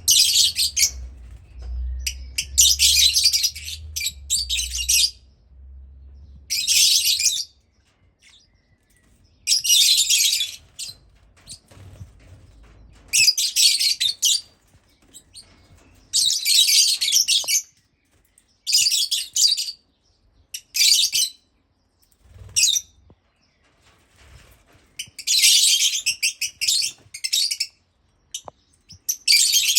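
Black-cheeked and Fischer's lovebirds giving high-pitched chattering calls. The calls come in about a dozen bouts of around a second each, with short silent pauses between them.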